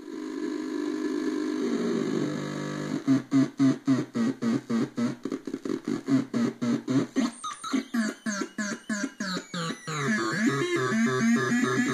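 Solar-powered breadboard mini synthesizer making a buzzing electronic drone that turns into rapid pulses about three seconds in, around four to five a second, then into a warbling sweeping buzz near the end.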